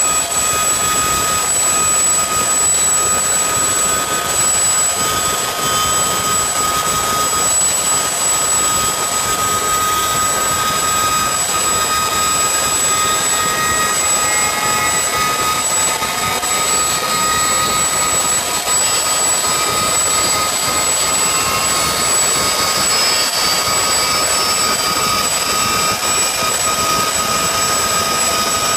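CH-47 Chinook helicopter's twin turbine engines and tandem rotors running, heard from inside the cargo bay through the open rear ramp. It is a loud, steady roar with a high-pitched turbine whine.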